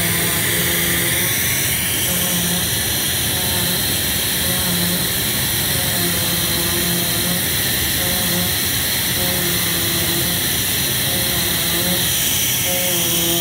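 Digital flatbed cutting machine running over carpet: a steady loud hiss, with pitched whines that come and go every second or two as the cutting head moves.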